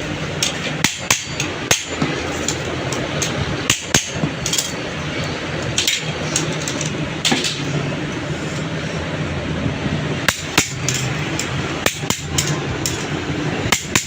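Hammer blows on the metal of a truck clutch pressure plate, coming as irregular clusters of sharp strikes with pauses between. A steady background noise runs under them.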